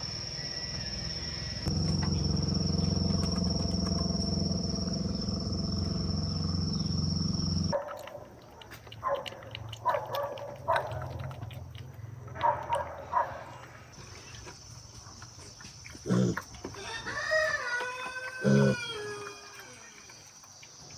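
A steady high-pitched drone over a low hum, then, after an abrupt change about eight seconds in, short animal calls and a rooster crowing with a long gliding call near the end.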